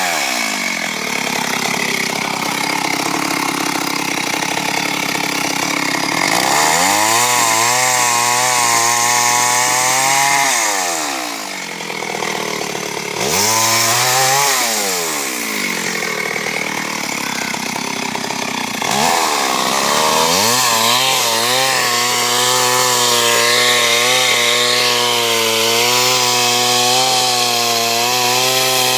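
Chainsaw engine running at high revs while cutting through a large tree trunk. Its pitch drops and climbs back up a few times as it is throttled back and revved again, and in some stretches the steady whine turns rougher.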